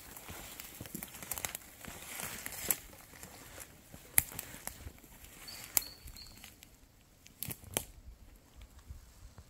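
Footsteps crunching and swishing through dry grass and leaf litter, with a few sharper cracks underfoot.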